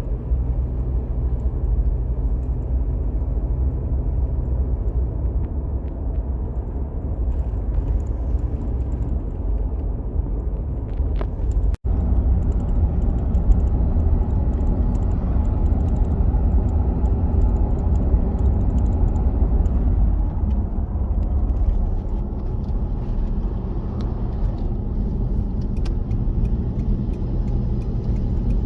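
Steady low rumble of road and engine noise inside a moving car's cabin at cruising speed, with one sudden brief gap near the middle.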